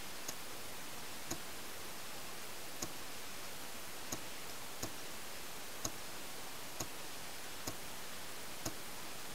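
Distant paintball markers firing single shots across the field, heard as short, sharp pops about once a second at uneven intervals over a steady hiss.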